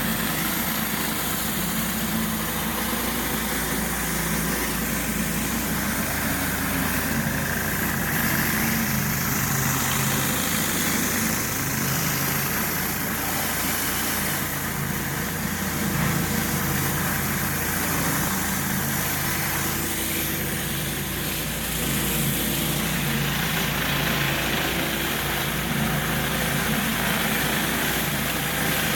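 Gasoline engine of a pressure washer running steadily, with a dense hiss over it.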